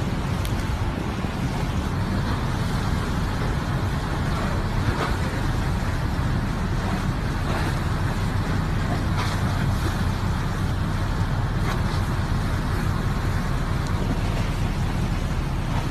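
Storm wind blowing steadily over the microphone, a continuous low rush with choppy harbour water beneath it.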